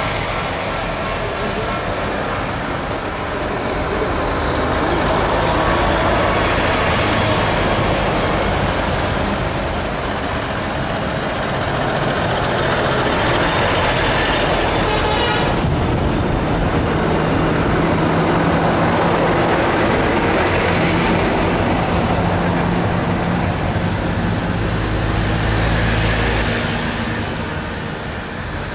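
A convoy of heavy lorries drives past one after another, their diesel engines running, the sound swelling as each truck passes.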